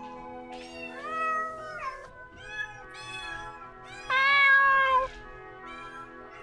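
Domestic cats meowing one after another, several different voices, over background music; the loudest is one long, drawn-out meow about four seconds in.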